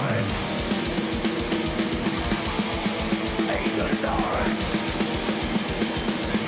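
A live thrash metal band playing: distorted electric guitars and bass chug over fast drumming, with a guitar pitch slide diving down right at the start.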